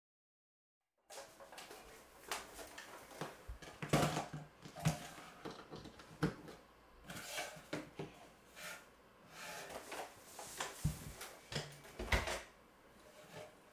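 Irregular plastic clicks, knocks and rustles as a robot vacuum's charging dock and power cord are handled and plugged into a wall socket and the robot vacuum is set down on a wooden floor; the sharpest knocks fall about four seconds in and near the end.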